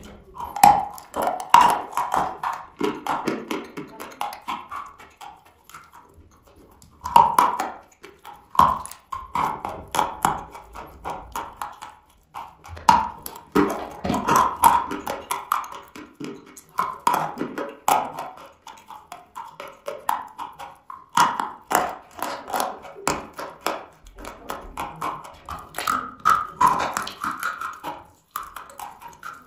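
Biting and chewing dry chalk: many sharp, dense crunches in bursts, with brief pauses between bites.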